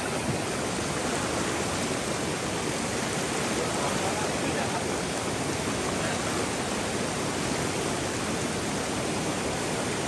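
Swift stream current rushing steadily, heard close to the water.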